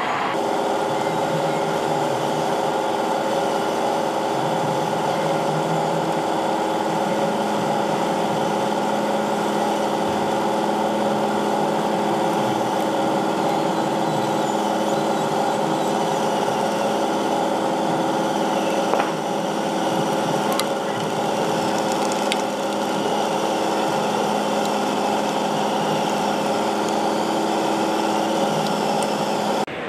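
Simulated diesel engine sound of a 1:16-scale RC military vehicle running steadily at a constant pitch, with a few faint clicks past the middle.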